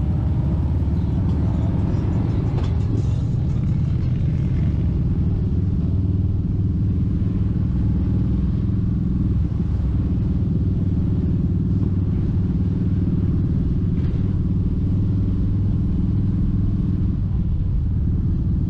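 Kawasaki Vulcan 1700 Vaquero's V-twin engine running steadily as the motorcycle cruises, a constant low drone.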